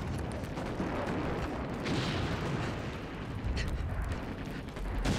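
War-film battle soundscape: a continuous low rumble of artillery and explosions, swelling about two seconds in, with a few faint sharp gunshots.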